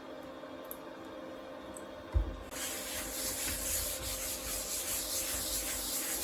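A quiet steady hum, then a single knock about two seconds in, followed by continuous rubbing strokes as the Artillery Sidewinder X2 3D printer's bed is wiped clean.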